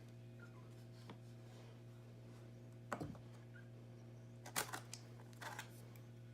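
A few short knocks and clicks from the iMac being handled, the loudest about three seconds and four and a half seconds in, over a steady low hum.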